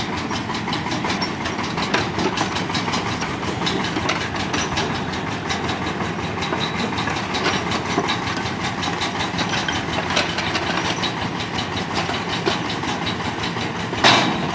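Excavator running, with a steady clatter of metal clicks and clanks and one louder bang near the end.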